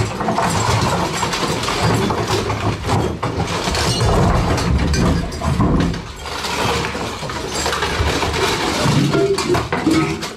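Steel plate armour clanking and rattling as a man wearing it crashes down onto a wooden trestle table, breaking it; the boards and legs clatter onto the floor with him.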